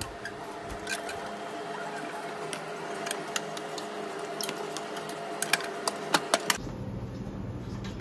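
Scattered light clicks and clinks of dishes and serving utensils over a faint steady hum, with a quick cluster of sharper clicks about five to six seconds in.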